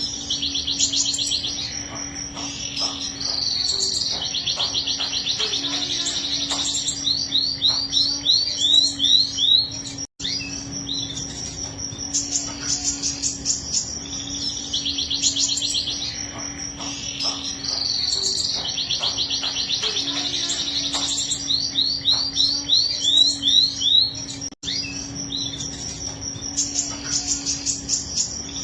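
Domestic canary singing a long song of rapid rolling trills and quick rising note series, over a steady low hum. The song breaks off for an instant twice.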